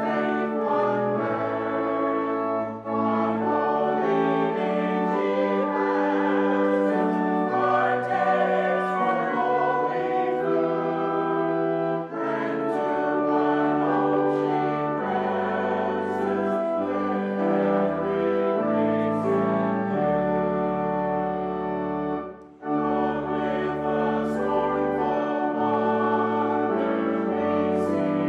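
Congregation singing a hymn with organ accompaniment, in sustained phrases broken by short pauses about every ten seconds.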